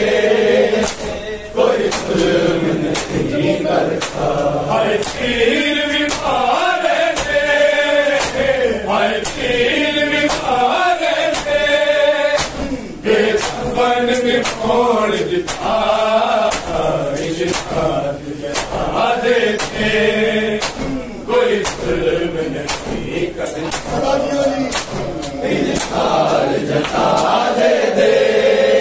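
A group of men chanting a noha, a mourning lament, in unison, kept in time by sharp slaps of hands on bare chests (matam) about once a second.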